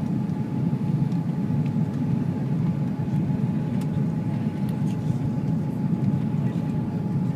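Steady cabin roar inside a four-engine Airbus A340 airliner on landing approach with flaps extended: engine and airflow noise, with a faint steady whine running through it.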